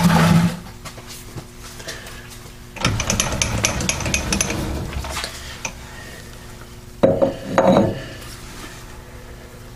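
Heavy Ash & Co three-jaw lathe chuck being handled and offered up against a freshly turned steel backing plate: metal clanking and rattling, with a patch of scraping clatter in the middle and two solid knocks near the end. The chuck does not yet seat on the plate's register, which is still about a thousandth too large.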